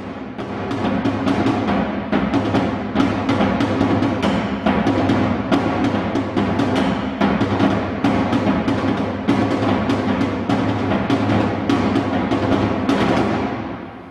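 A large bass drum and a tom beaten with sticks in a rapid, continuous rhythm of closely spaced strokes, building up at the start and dying away near the end.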